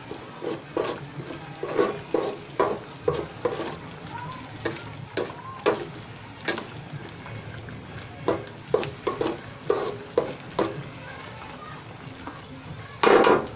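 Green silicone spatula stirring chicken curry in an aluminium wok: repeated short scrapes and knocks against the pan at an irregular pace, over the steady sizzle of the simmering curry. A louder clatter comes near the end.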